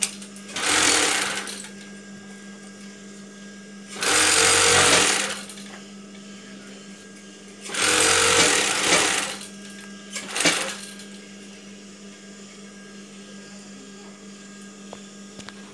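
Industrial flatlock sewing machine stitching in four short runs of about a second each, the last one brief, with the steady hum of its motor between runs. It is a test seam on a machine whose looper point the repairer finds damaged.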